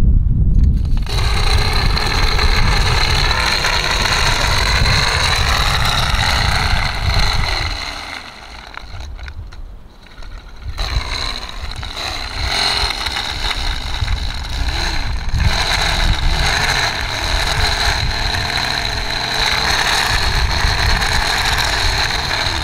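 Fishing line whirring as it pays off a hand-held spool while a one-pound brass weight sinks down a deep well casing: a steady high whine with overtones. It stops for a few seconds about eight seconds in, then starts again. Wind rumbles on the microphone underneath.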